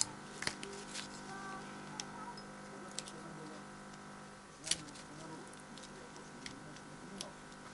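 Sparse small metallic clicks and taps of multitool pliers gripping and twisting the spot-welded metal tabs on a stack of rechargeable battery cells. The sharpest click comes about two-thirds of the way through, over a faint steady hum.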